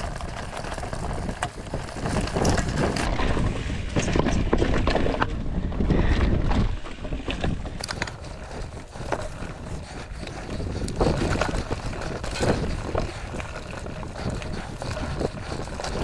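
Mountain bike rolling over dry leaves and rocks on singletrack: tyres crunching through leaf litter, with frequent sharp clicks and knocks from the bike over rough ground. Wind buffets the handlebar-mounted camera microphone, heaviest about four to seven seconds in.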